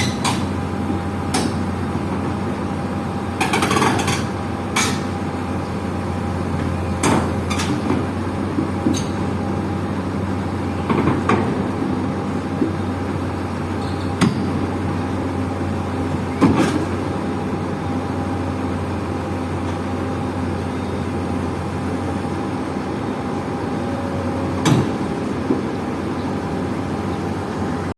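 Heavy diesel machinery running steadily at a low drone, with sharp metallic clanks and knocks every few seconds and a short clatter about four seconds in, as the excavator is loaded onto the self-loader truck.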